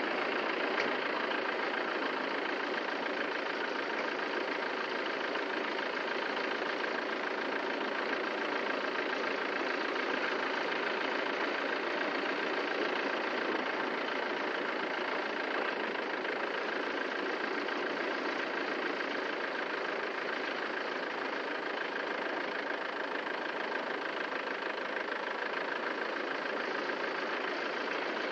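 An engine running steadily at an even pitch and level.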